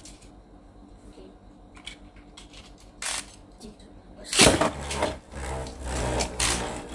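Beyblade spinning top launched into a clear plastic stadium about four and a half seconds in: a sudden clatter, then a fast whirring rattle as it spins and scrapes around the bowl. Before that come faint clicks of the launcher being handled.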